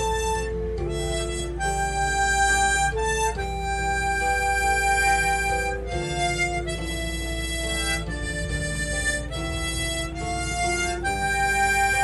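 Instrumental background music: a slow melody of held, reedy notes that change pitch every half second to second.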